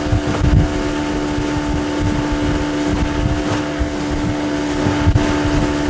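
A boat's outboard motor running at a steady speed, holding one even pitch, with wind buffeting the microphone.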